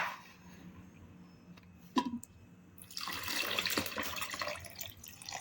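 Ice-cold water poured into a bowl of yogurt for avdug, splashing from about three seconds in after two light knocks.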